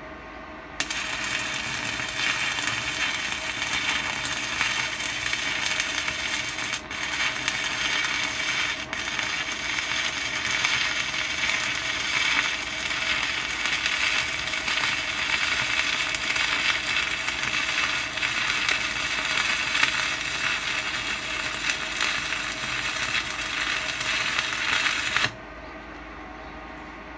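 Stick (MMA) welding arc crackling steadily as a 2.5 mm electrode at 85 A from a Weldinger EW 140 Mini inverter lays a bead on steel plate. The arc strikes just under a second in and breaks off sharply about two seconds before the end.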